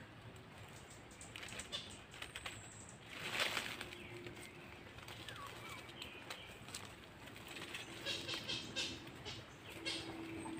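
Rustling and handling noises in dry leaf litter, with a short, louder flurry about three and a half seconds in and faint bird calls in the background.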